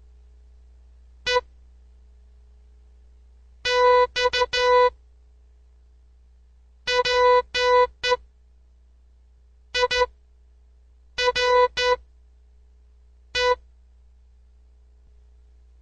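Morse code beeps: one steady, buzzy tone keyed in short and long beeps, sent in separate groups with pauses between them, spelling out words for a decoding quiz.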